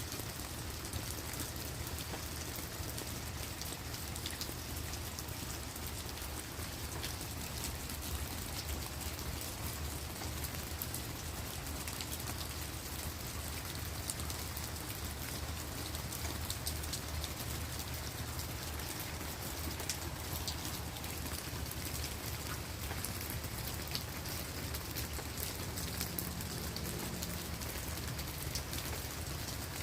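Steady rain falling on leaves and on the ground, with many separate drop hits ticking over an even hiss. A low, steady rumble runs underneath.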